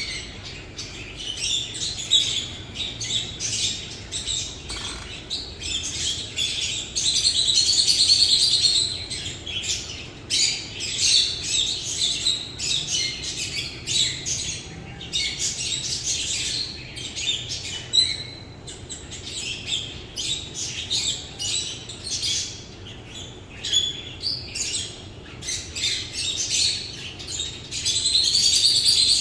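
Many small birds chirping together: a dense, continuous chatter of short, high chirps, swelling louder about a quarter of the way in and again near the end.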